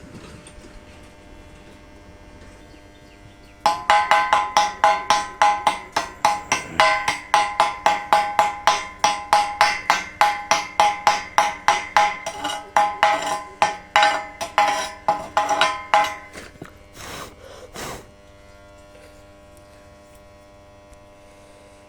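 A metal hammer striking a galvanized iron pipe rapidly, about three or four blows a second for some twelve seconds, each blow ringing with a metallic tone. Two short scraping strokes follow, over a steady electrical hum.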